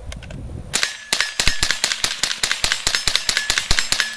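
Mexar .22 LR rifle by Mendoza firing a rapid string of shots, many sharp cracks in quick succession for about three seconds, starting under a second in and stopping just before the end. Steel targets ring between the shots.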